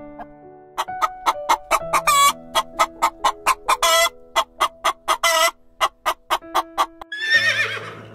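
Chickens clucking: a quick run of short clucks, about four a second, with a few louder, drawn-out ones, over soft background music with sustained notes. A wavering call comes near the end.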